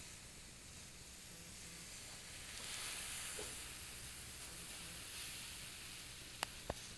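Homemade Super Cat alcohol stove burning denatured alcohol in a ring of jet flames under a titanium cup of heating water: a faint, soft hiss that swells in the middle. Two sharp ticks a fraction of a second apart near the end.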